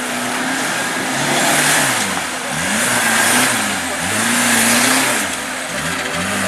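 Off-road trial car's engine revving up and down over and over, its pitch climbing and dropping in about four surges as it works through a section.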